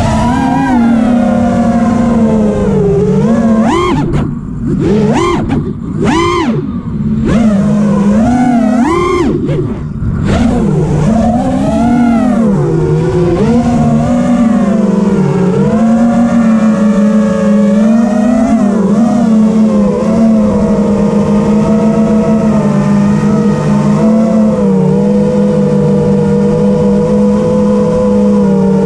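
FPV freestyle quadcopter's Brotherhobby T1 2205 brushless motors spinning Ethix P3 props, a whine that swoops up and down sharply with throttle punches and brief cuts during the first ten seconds or so, then settles into a steadier, more even pitch with gentle swells as the quad cruises.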